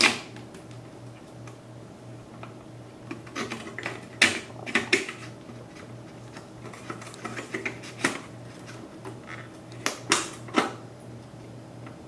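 Scattered clicks and light knocks from hands handling hardware and tools around an open computer case, a few in quick clusters, over a faint steady low hum.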